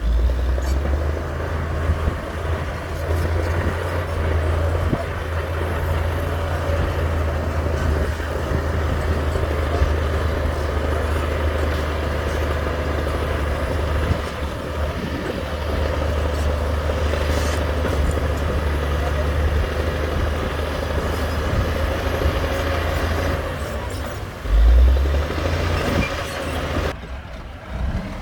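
Heavy diesel earthmoving machinery working, its engine running with a steady low drone. There is a brief louder surge near the end.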